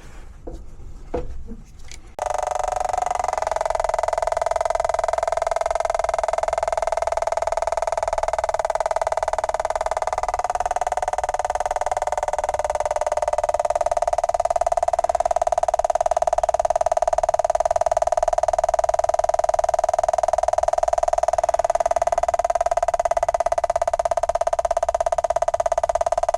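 A few faint clicks, then about two seconds in a steady droning hum of many held tones starts abruptly and runs on unchanged.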